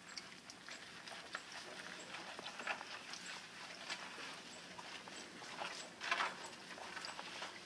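Faint wet squishing and rubbing as gloved hands scrub a soapy, lathered curly poodle coat, in short irregular strokes. One stronger squelch comes about six seconds in.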